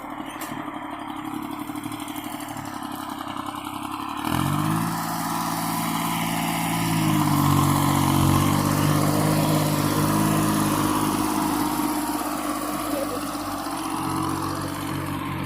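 Small tractor's engine running steady at low speed, then revved up sharply about four seconds in and again a few seconds later, holding at the higher speed.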